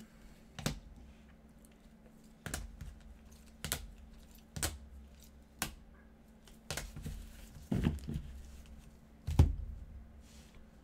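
Hard plastic trading-card cases clacking as they are handled and set down on a stack: about eight sharp clicks at uneven intervals, the last one the loudest.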